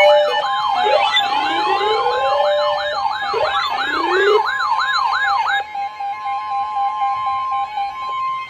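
Emergency alert tones sounding together, signalling a severe thunderstorm warning: steady alert tones overlapped by electronic siren sweeps that wail rapidly up and down, and slower rising whoops. The sweeps stop about five and a half seconds in, leaving the steady tones, which begin dropping out near the end.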